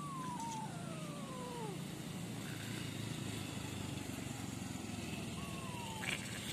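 Kitten mewing: two thin, falling mews overlap at the start and a shorter one comes near the end, over a steady low hum.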